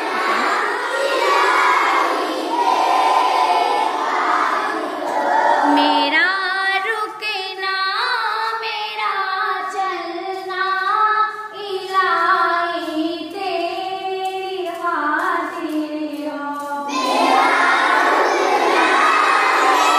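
Children singing an Urdu hamad, a devotional hymn to God, together in chorus. From about six seconds to about seventeen seconds a single voice sings a line alone, and then the chorus of children comes back in.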